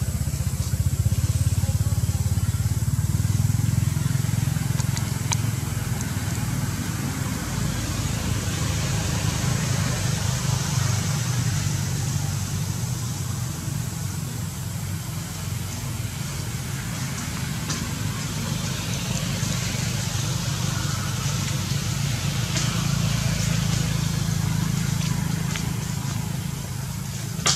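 A steady low rumble of outdoor background noise, with a few faint scattered clicks.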